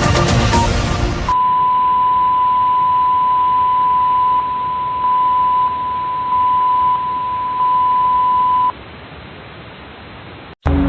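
Electronic music breaks off about a second in and is replaced by a steady, single-pitched alert beep over hiss, which holds for about seven seconds. The beep then stops, leaving quieter hiss, a brief dropout, and music coming back in at the very end.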